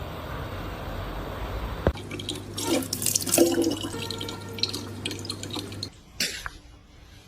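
Water running and splashing with irregular clicks and drips; the sound changes abruptly about two seconds in and again near the end.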